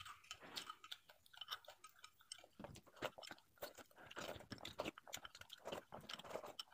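Faint close-up chewing of a mouthful of rice and fried fish, with many small irregular clicks and crackles.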